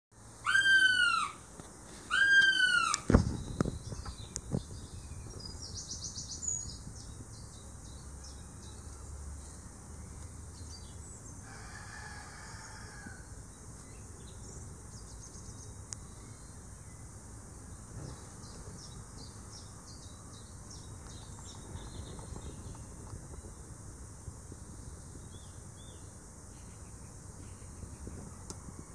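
A female Siberian goshawk on her nest gives two loud drawn-out calls, each rising then falling in pitch, followed by a sharp knock about three seconds in. After that there is low rustling, with faint small-bird chirps in the background.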